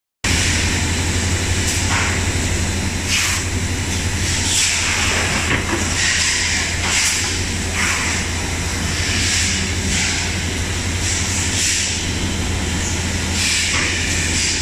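Automatic plastic-bottle packaging machine running: a steady low hum with short hisses of air from its pneumatic actuators, coming irregularly every second or two.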